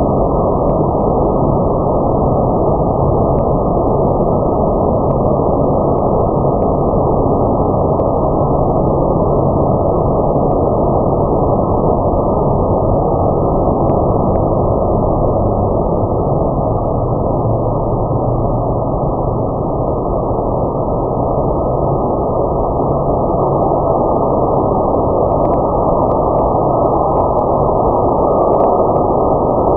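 Steady, unbroken low mechanical roar of car wash machinery running.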